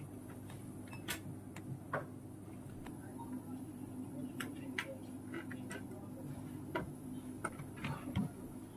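Irregular light clicks and taps from a mechanical keyboard's parts being handled during repair, over a steady low hum.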